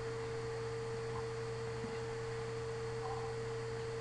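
Steady electrical hum with a constant mid-pitched tone and a lower buzz over even hiss, the background noise of the recording, with no other distinct sound.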